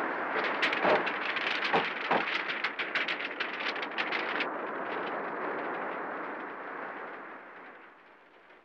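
Wind blowing steadily, with the pages of an open book flapping and riffling quickly in it for the first four seconds or so; the wind noise then fades away.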